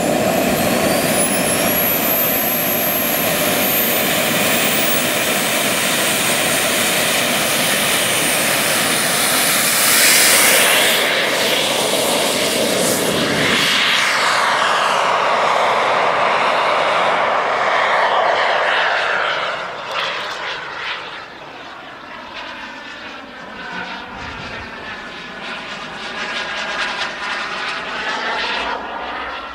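Simjet 2250 model gas turbine of a Boomerang Elan RC jet in flight: a steady jet whine and rush with a high whistle. It is loudest as the jet passes about ten seconds in, drops in pitch after the pass, then fades to a quieter, sweeping rise and fall about twenty seconds in as it flies off.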